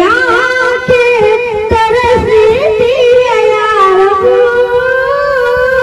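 A boy singing a ghazal solo into a microphone, drawing out long notes that bend and waver in pitch.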